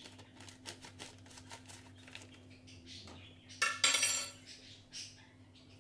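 Light clicks and clinks from handling a stainless steel mixing bowl on a granite counter, with a louder rasping scrape lasting under a second about three and a half seconds in.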